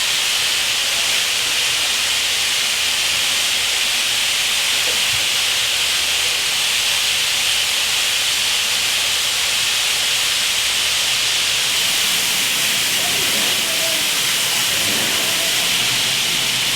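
Steam hissing steadily and loudly from the South African Class 26 'Red Devil' 4-8-4 steam locomotive while it is in steam, an even unbroken hiss with no change in level. Faint voices come in near the end.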